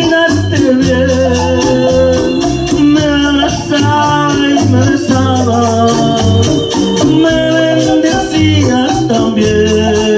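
Latin dance music played loud through a party sound system's speakers: a steady beat with a repeating bass line, a fast shaker rhythm and a sliding keyboard-like melody.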